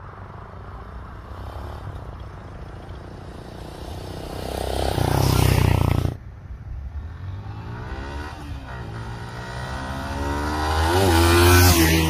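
Traffic passing on a road, mostly motorcycles. One vehicle swells louder and cuts off abruptly about six seconds in. After that, motorcycle engines draw near, their pitch bending and climbing as they grow louder toward the end.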